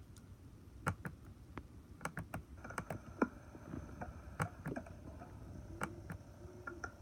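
Faint, scattered clicks and taps at an uneven pace, with a faint steady thin tone coming in about two and a half seconds in.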